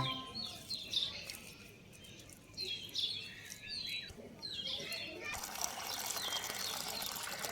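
Small birds chirping over and over in short, quick calls. About two-thirds of the way through, a steady rushing noise comes in beneath the calls.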